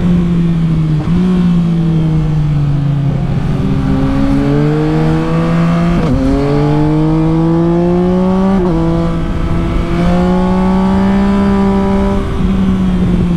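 Yamaha Tracer 9 GT's 890 cc inline three-cylinder engine through a Leovince LV Race exhaust, heard from onboard while riding: a deep exhaust note climbing in pitch under acceleration and dropping suddenly several times, most sharply about six and nine seconds in.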